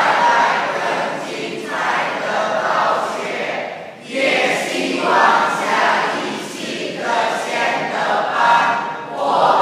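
A large group of young men and women singing together in unison, in phrases of two to three seconds with short breaths between them.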